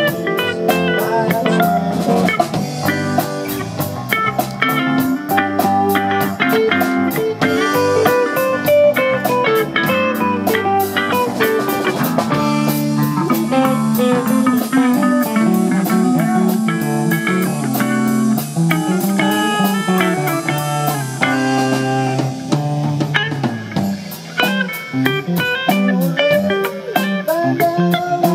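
Live rock band playing an instrumental passage on electric guitars, bass and drum kit, with a guitar picking out melodic lines over a steady cymbal pulse. The cymbal strokes thin out through the middle and pick up again near the end.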